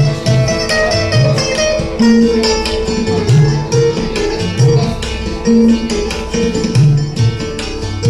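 Live acoustic band music: several acoustic guitars playing an instrumental passage over tabla.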